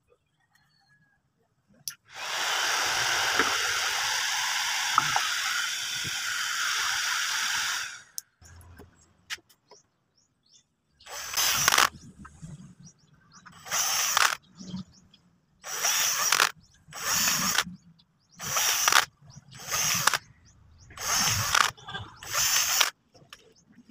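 Small electric drill boring vent holes in an orange plastic controller housing, running in about eight short bursts, one for each hole. Before them comes a steady whirring for about six seconds.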